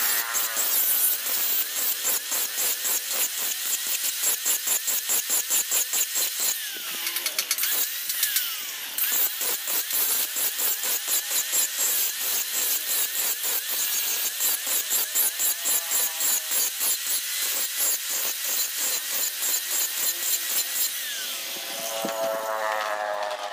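Angle grinder grinding the edge of a strip of car spring steel, its rough grinding noise pulsing rapidly as the disc is worked along the metal. Near the end the disc comes off the steel and the sound changes to a pitched whir.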